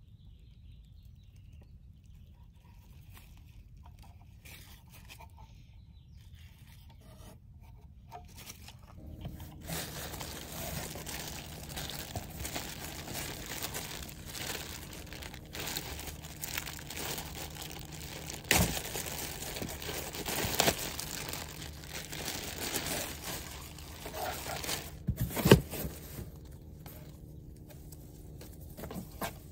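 Faint handling clicks at first, then thin plastic packaging rustling and crinkling as a fabric item is pulled out of a plastic bag among air-pillow packing, with two loud sharp crackles in the second half.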